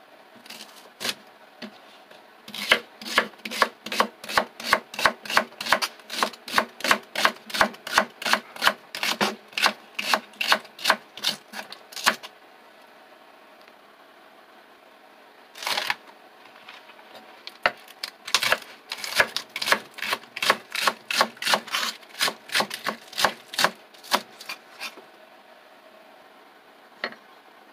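Kitchen knife chopping leek on a wooden cutting board: steady knocks of the blade on the board, about three a second, in two long runs with a single stroke between them.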